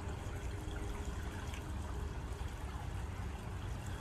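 Swimming-pool water trickling and lapping steadily, over a low rumble.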